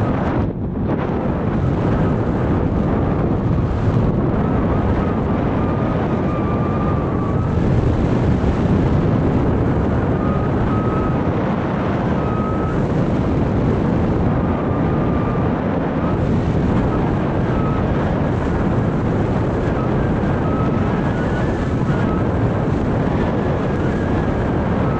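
Steady rush of airflow buffeting the microphone of a paraglider in flight, with faint short beeps from the flight variometer coming and going, their pitch shifting slightly.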